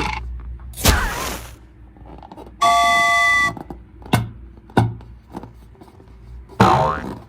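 A string of added cartoon-style sound effects: a swish about a second in, a held chime-like tone around three seconds in, a couple of sharp clicks, and a short rising sweep near the end.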